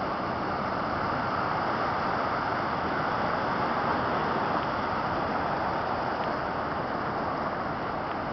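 Pacific Ocean surf: a steady wash of noise with no clear swells or breaks.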